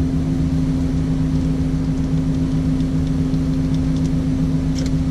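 Heavy truck's diesel engine idling steadily with a constant low drone, heard from inside the cab. A couple of light clicks sound near the end.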